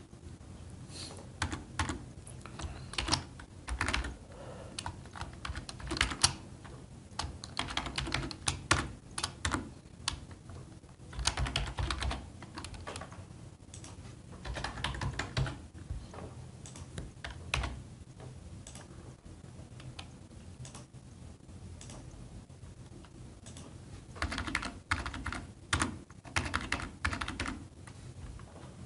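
Computer keyboard being typed on in quick runs of keystrokes, with short pauses between runs and a longer lull in the second half.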